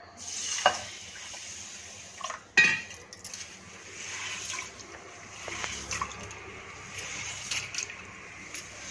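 Water poured from a steel pot into a glass bowl of finger millet (ragi), with a sharp clink about two and a half seconds in, then the soaked grain swished and rubbed by hand in the water to wash out grit and husk.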